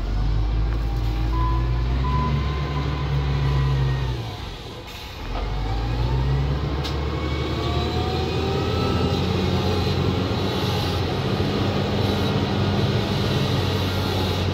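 Develon SD300N wheel loader's diesel engine running under load as it pushes soil, with higher whining tones rising and falling over the low engine note. The engine drops off briefly about four and a half seconds in, then picks up again and runs steadily.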